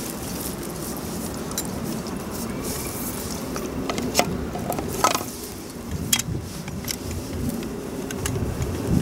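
Someone rummaging in a fabric camouflage pack: cloth rustling, with a few sharp clicks and clinks as small items are handled and set down on stones, over a steady rushing background noise.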